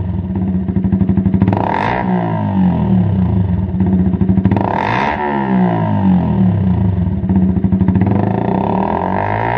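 Yamaha YZF-R125's single-cylinder four-stroke engine running through a Lextek MP4 aftermarket silencer, idling and blipped twice, about two and five seconds in. Each rev falls back to idle, and the revs climb again near the end.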